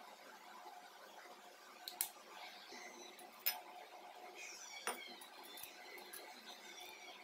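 A metal spoon clinking against a ceramic bowl while dry spices are stirred into gram flour: three sharp taps, about a second and a half apart.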